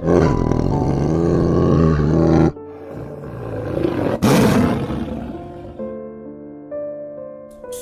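A big cat roaring twice: a long roar, then a shorter one about four seconds in, over background music.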